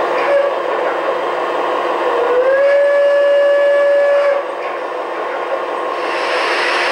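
Gauge 1 model steam locomotive sounding its whistle: a short toot near the start, then a longer steady blast of about two seconds that slides up slightly into pitch, over a steady hiss.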